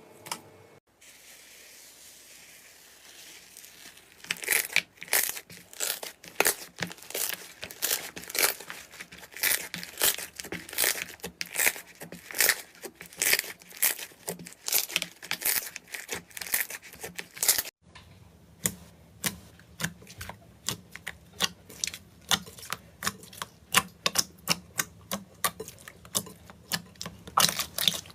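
Slime being squeezed and poked by hand, making a rapid run of sticky clicks and pops after a few seconds of soft hiss. There is an abrupt break about 18 seconds in, after which the clicking goes on over a low hum.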